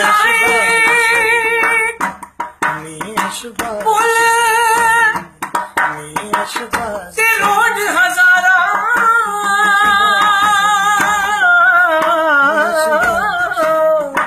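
Male voice singing a Punjabi song in long, held, wavering notes: a phrase at the start, a short one about four seconds in, and a long drawn-out phrase from about seven seconds to the end.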